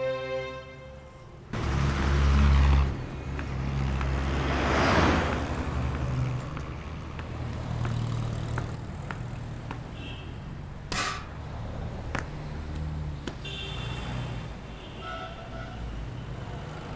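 Street traffic: motor vehicles passing on a road with a steady low engine rumble. The rumble is loudest about two seconds in, another vehicle swells past and fades around the fifth second, and there is a sharp click about eleven seconds in.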